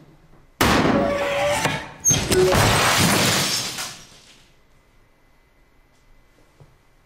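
Two loud crashes with breaking glass, about half a second and two seconds in, the second the longer and fading over a couple of seconds: a wall-mounted LCD TV falling onto a laptop on a small glass-topped side table.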